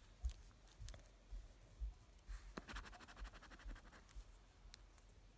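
Coin scratching the silver coating off a scratch card, faint, in short rubbing strokes with a few light clicks and a quicker run of scratching about halfway through.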